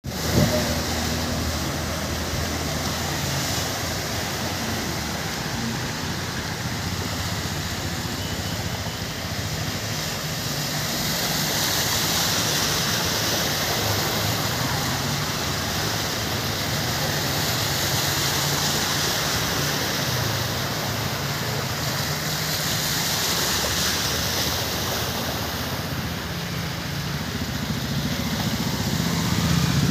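Vehicles driving through a flooded road: a steady rush of water churned up by their tyres over a low engine hum, swelling as each vehicle passes. Near the end a motorbike engine grows louder as it approaches through the water.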